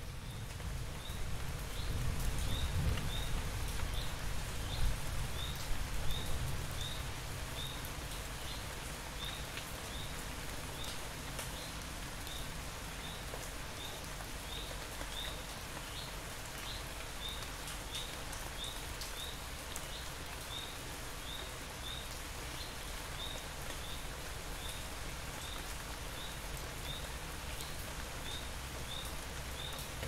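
Steady rain falling, an even hiss, with a small animal's short high chirp repeating about twice a second. A low rumble swells under the rain in the first few seconds and then settles.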